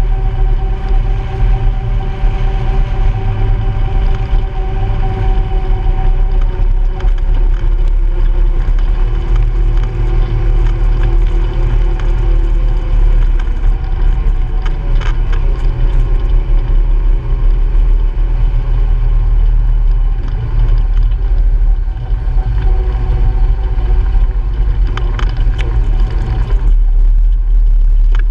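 Honda Pioneer 700-4 side-by-side's single-cylinder engine running at a steady trail speed over a heavy low rumble, with a few brief rattles partway through.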